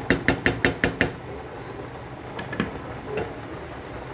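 A quick run of about seven sharp taps in the first second, then a few scattered single ticks.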